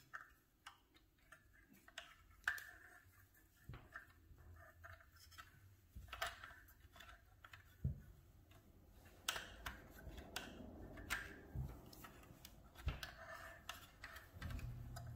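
Faint, scattered clicks and light rustling of hands handling the thread and parts at the needle and presser foot of a small plastic mini sewing machine while threading it.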